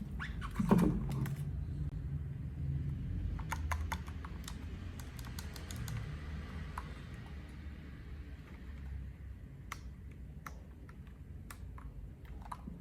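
Typing on a HelloGanss HS87T mechanical keyboard with Gateron Yellow Pro linear switches and PBT double-shot keycaps: key clacks in short, scattered runs, with one heavier knock under a second in.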